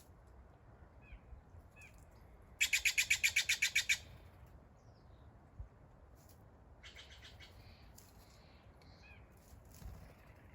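Wild bird calling in a forest. A fast rattling call of about a dozen notes comes about two and a half seconds in, a shorter rattle follows near seven seconds, and a few faint chirps fall in between.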